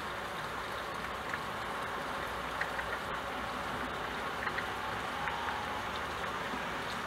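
Steady rain falling on a window, an even hiss with scattered single drops ticking now and then.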